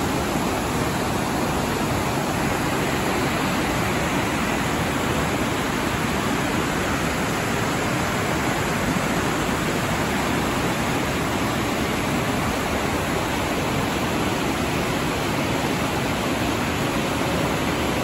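Snoqualmie River whitewater rushing steadily over rocks and around a boulder, a continuous even roar of water.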